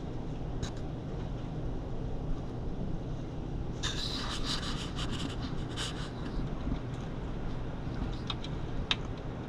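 Raccoons feeding right at the microphone: scratchy rustling and crackling, densest from about four to six seconds in, with a few sharp clicks near the end, over a steady low rumble.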